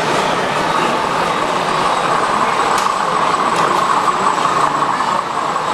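Model diesel train running along layout track past the camera: a steady running noise that swells from about two seconds in as the locomotive comes closest, over an exhibition hall's background hubbub.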